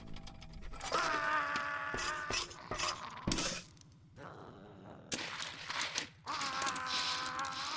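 Animated-cartoon sound effects: a wavering, buzzing electronic whine that plays twice, with scattered clicks and knocks between.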